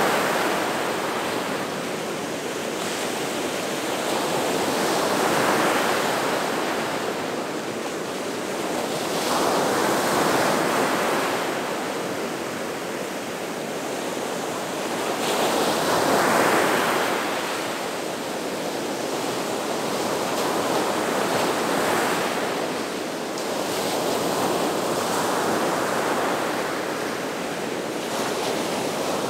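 Gulf of Mexico surf: waves breaking and washing onto the beach in a continuous rush that swells and eases about every five to six seconds.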